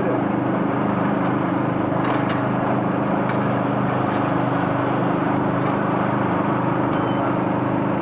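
Skoda Felicia Kit Car's engine idling steadily at an even pitch, with a few faint clicks and knocks over it.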